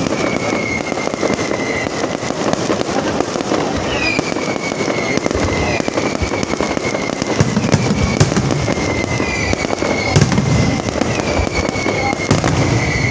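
Fireworks display: dense, continuous crackling with deep booms, and whistles every second or two that each drop sharply in pitch, then hold a slowly falling tone.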